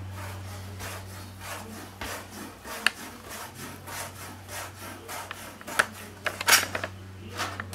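Chef's knife dicing raw bacon on a plastic cutting board: a run of short chopping and slicing strokes, the blade tapping the board about twice a second.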